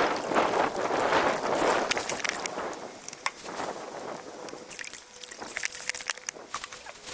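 Water sloshing and pouring from a bucket into a clear plastic tub, fading out about two and a half seconds in. Light clicks and knocks follow.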